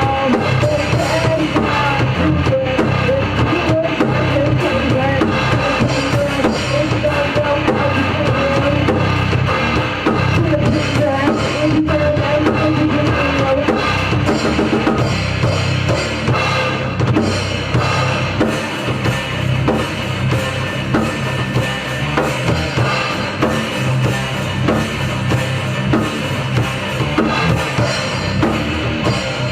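A rock band playing live in rehearsal: a full drum kit, with bass drum and snare driving a steady beat, under a dense, loud band mix with a wavering melodic line in the first half.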